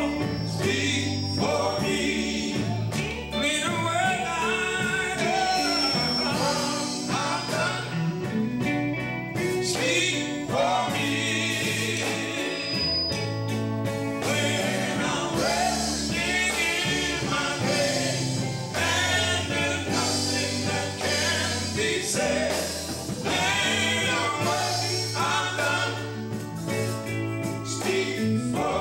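Male gospel quartet singing in harmony into microphones, backed by electric guitar, bass guitar and keyboard, played live through a PA.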